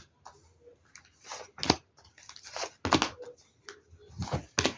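A deck of tarot cards being shuffled and handled: a run of irregular papery swishes and sharp snaps, the loudest about three seconds in and just before the end.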